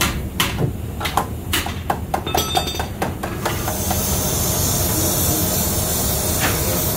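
A quick run of metal knocks and taps, a few leaving a short metallic ring. About three and a half seconds in, a steady spraying hiss takes over.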